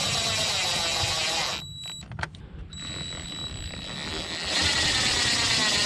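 Yellow cordless power driver with a 7 mm socket running in two door-panel bolts, its motor whining with a wavering pitch. The first run stops about a second and a half in and is followed by a couple of clicks. A second run starts a second later and gets louder past the halfway point.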